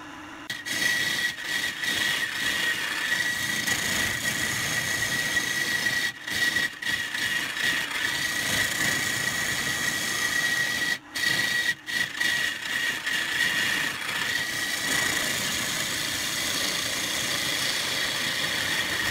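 Wood lathe running with a steady high whine while a turning tool cuts the spinning pine vase blank, a rough scraping hiss of shavings coming off. The sound cuts out briefly a few times.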